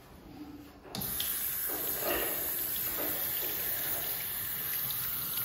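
Water running steadily from a touchless sensor faucet into a washbasin as hands are rinsed, starting abruptly about a second in.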